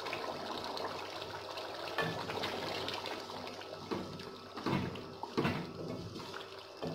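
Beef karahi gravy boiling over a high flame in a metal karahi, a steady bubbling sizzle as the excess water cooks off. In the second half a wooden spatula stirs the meat, with a few scrapes and knocks against the pan.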